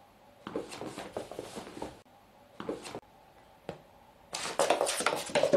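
A cat scrabbling and pouncing on a shaggy rug: several bursts of scratchy rustling as its claws catch the pile and the rug is dragged and bunched on the wooden floor, the longest and loudest run starting a little past four seconds in.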